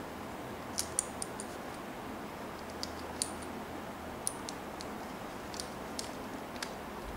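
Light, irregular clicks and taps of small plastic model-kit parts being handled and pressed together, peg into hole, over a steady background hiss.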